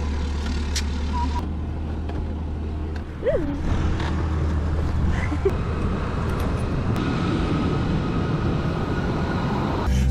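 Steady low rumble of an idling vehicle engine, with a few light clicks and a brief squeak about three seconds in.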